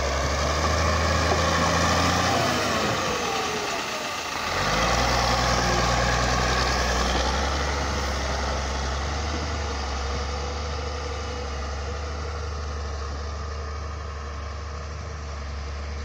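Caterpillar motor grader's diesel engine running steadily under load as its blade pushes and scrapes soil and rocks, with a brief dip in the engine sound about four seconds in.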